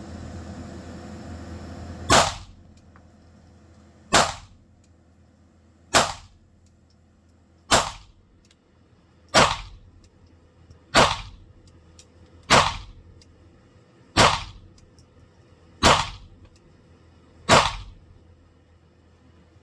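Ten single shots from a .22LR Beretta 92FS pistol, fired at a slow, even pace of one every one and a half to two seconds.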